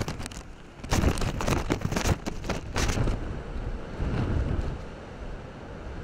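Strong typhoon wind buffeting the microphone in gusts over the rush of heavy storm surf breaking against a sea cliff. The gusts ease about three seconds in, leaving a steadier roar of wind and surf.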